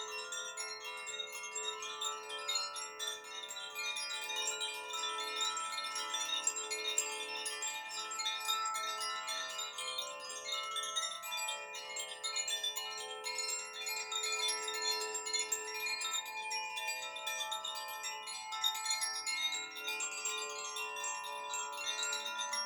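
Koshi chimes, bamboo-tube wind chimes with tuned metal rods, being swirled by hand without pause, so that many ringing notes overlap into a continuous shimmer.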